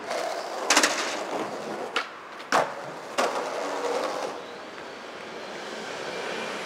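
Skateboard wheels rolling on pavement, broken by a series of sharp clacks and slaps of the board hitting the ground, the loudest about two and a half seconds in. The rolling noise drops away after about four seconds.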